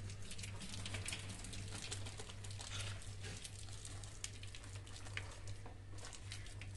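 Water from a garden hose spattering on a wet courtyard floor: a faint, steady patter with small crackles, over a low steady hum.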